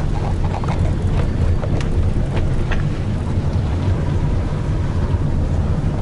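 Car cabin noise while driving: a steady low rumble of engine and tyres with wind noise, and a few light clicks in the first half.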